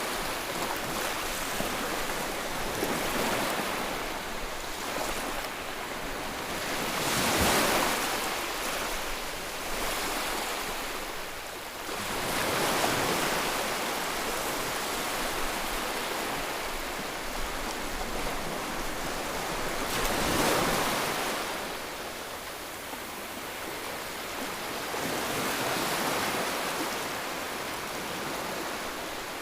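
Sea waves washing onto the shore, a steady rushing that swells and falls with each wave; the biggest surges come about seven and twenty seconds in.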